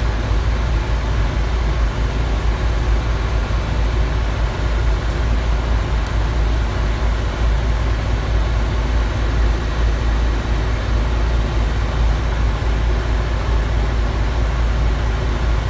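Isuzu truck's engine idling steadily, heard inside the cab, with the newly replaced blower fan running and pushing air out of the dash vents: the blower test after the repair.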